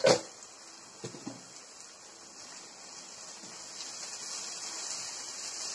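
Ground masala paste sizzling in hot oil in a non-stick kadai as it is stirred with a wooden spatula; the sizzle grows slowly louder toward the end.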